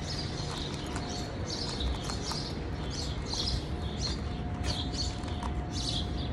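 Small birds chirping in quick, repeated high notes over a steady low background rumble.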